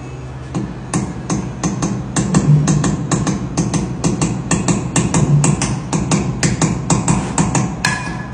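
A hammer tapping a pointed tool against the edge of a tempered-glass stair panel: a fast run of sharp metallic knocks, about four a second. Near the end one brighter strike rings, as the tempered panel breaks into a web of cracks.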